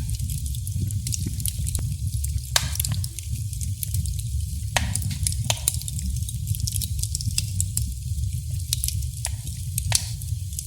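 Burning wood crackling in a fireplace: a steady low rumble under scattered sharp pops and snaps, with a few louder pops among them.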